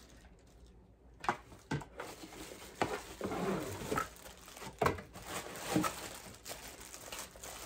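Clear plastic bag crinkling and rustling as a blow dryer wrapped in it is handled and lifted out of a cardboard box. It starts about a second in, with several sharp clicks and knocks among the crinkling.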